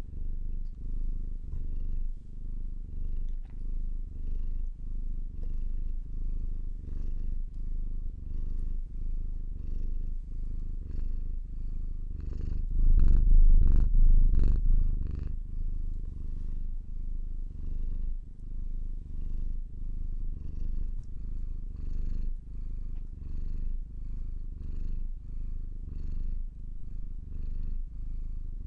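Domestic cat purring: a low rumble that rises and falls in even pulses, about three every two seconds, growing louder for a couple of seconds around the middle.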